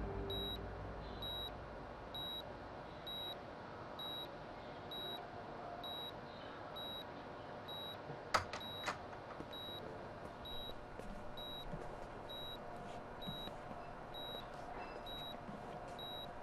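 Hospital patient monitor beeping steadily about once a second, short high beeps over faint room hiss. Two sharp clicks a little past halfway.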